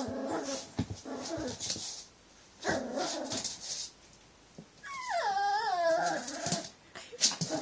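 Cavalier King Charles Spaniel puppy vocalising in short bouts: a low growl-like call, a short yip about three seconds in, then a wavering, high-pitched whine lasting about a second, about five seconds in.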